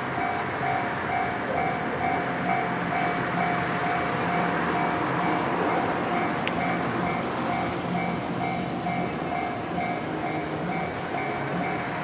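Japanese level-crossing warning bell ringing over and over in an even rhythm, over the steady noise of an electric passenger train running past on the rails.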